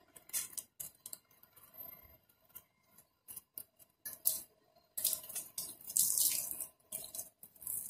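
Water thrown by the dipperful from a plastic dipper onto a car's side panels and windows, splashing and running off in irregular bursts, the longest and loudest about five to six and a half seconds in.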